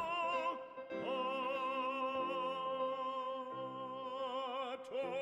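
Background music: a classical piece with a sung melody held in long notes with vibrato over steady accompaniment.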